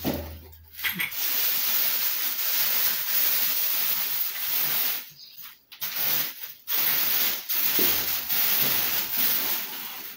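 Plastic packaging film crinkling and rustling as it is pulled and stripped off a brush cutter's shaft, in two long stretches with a short break just past the middle.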